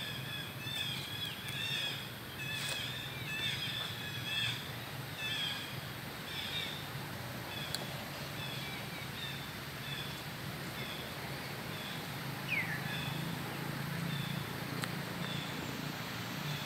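Birds chirping: short, high notes repeated quickly at first, then about once a second, with one falling note near the end, over a low steady hum.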